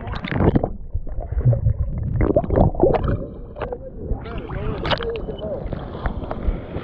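Seawater sloshing and splashing around a camera held at the waterline, with gurgling as small waves wash over the microphone.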